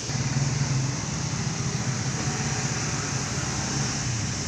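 Steady low motor-vehicle engine rumble with road traffic noise, a little louder in the first second.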